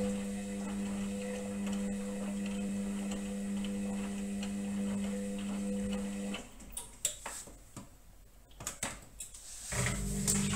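Indesit front-loading washing machine tumbling a load of wet towels: the drum motor hums steadily, stops about six seconds in, leaving a few seconds of scattered clicks and knocks, then starts turning the drum again near the end.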